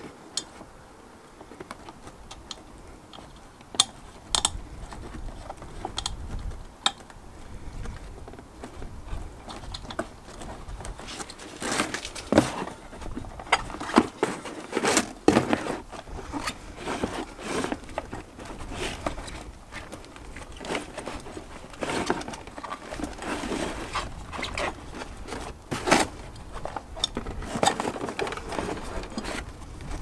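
Hands working a rubber inner tube and tyre onto a small mobility-scooter front wheel rim: irregular rubbery rustling, scrapes and light knocks, busier in the second half.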